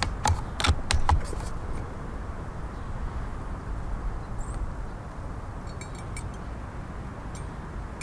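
A quick run of sharp metallic clicks and knocks, about half a dozen in the first second and a half, as the Umarex Gauntlet 2 PCP air rifle is handled and its bolt cycled to chamber the next pellet. After that there is only a steady low outdoor background with a few faint ticks.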